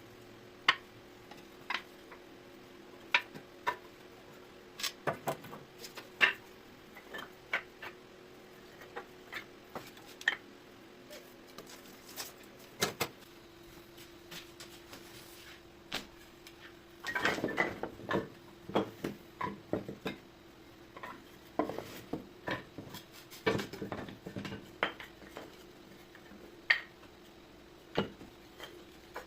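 Irregular knocks, clicks and clatters of boards and hand tools being handled and set down on a bench, busier about two-thirds of the way in, over a faint steady hum.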